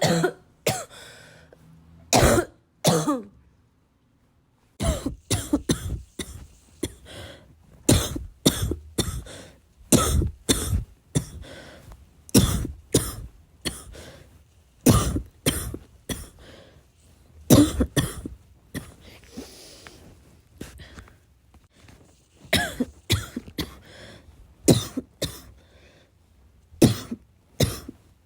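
A person coughing over and over in a long fit, a bad, chesty, barking cough: sharp coughs in quick clusters of one to two a second, with a brief silent gap about four seconds in.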